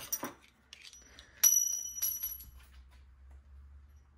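Steel pistol parts being handled on a bench, then two sharp metallic clinks about half a second apart, each leaving a high ringing tone that fades within about a second.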